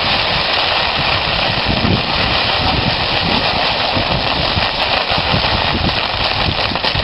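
Wind buffeting the microphone, an uneven gusty rumble over a steady loud hiss.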